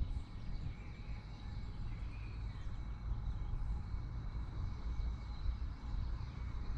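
Outdoor woodland ambience: a steady low rumble with a few faint bird chirps.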